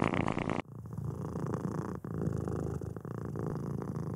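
Domestic cat purring, a rapid low rhythmic rumble. The recording changes abruptly about half a second in from a louder purr to a second, steadier and quieter purr, with a short break about two seconds in.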